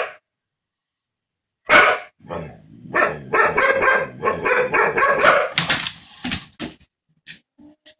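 Dog barking and growling in a rapid run of loud vocal bursts, starting about a second and a half in and thinning out near the end.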